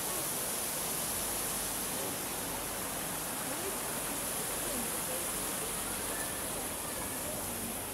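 Steady rush of a stream's water running over rocks, with faint voices behind it.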